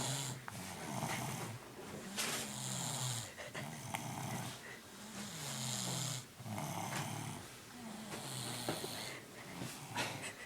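Sleeping baby snoring: a low, pitched snore on each breath that slides up and down in pitch, with hissing breath noise in between, repeating every two to three seconds.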